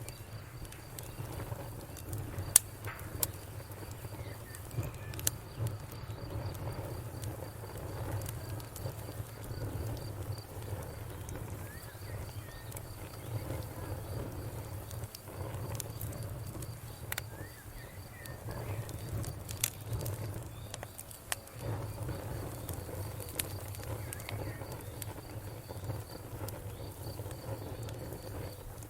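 Wood fire crackling, with scattered sharp pops over a low steady rumble. A cricket chirps in a fast, even pulse throughout.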